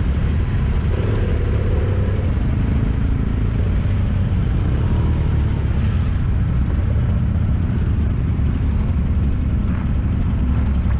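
Motorcycle engine running as the bike rolls along at walking pace, a steady low rumble heard from the rider's seat.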